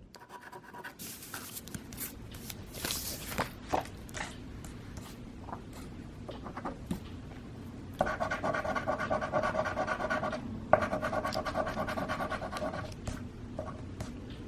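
Scratch-off lottery tickets being scratched and handled: scattered scrapes and light clicks. From about eight seconds in, a steady humming tone with several pitches joins, breaking off briefly near eleven seconds.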